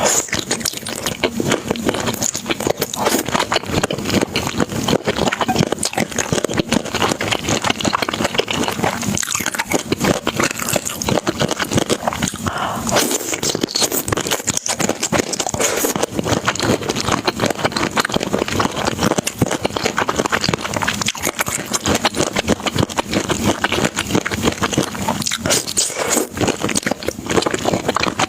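Close-miked eating sounds: chewing and biting into food, a dense, continuous run of small clicks and crunches with no pauses.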